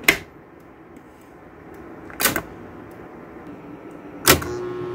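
Three sharp mechanical clacks about two seconds apart: electric switch machines on Lionel O-gauge switch tracks snapping over as the push-buttons are pressed. The last clack is followed by a brief electric hum while the switch coil stays energised.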